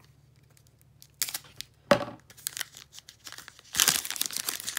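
Foil wrappers of trading-card hobby packs crinkling as the packs are handled. It is quiet for about the first second, then come a few sharp crackles, and the last second is dense crinkling.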